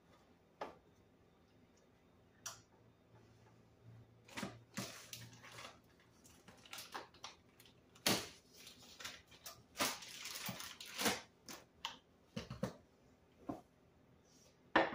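Food-prep handling noises: scattered light taps and knocks as cheese slices and rolls are arranged in a baking pan, with crinkling of a plastic deli package in the middle, and a louder knock near the end.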